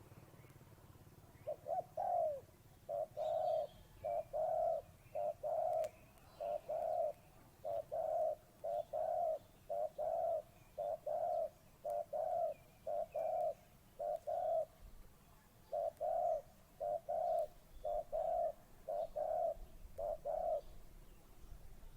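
Dove cooing steadily in short phrases of two or three low coos, about once a second, with a brief pause about two-thirds of the way through. It is a small-voiced bird that calls often.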